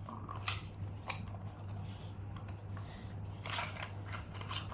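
Happy Meal toy box and its packaging being opened by hand: scattered crinkles and clicks, a cluster of them past the midpoint, over a steady low hum.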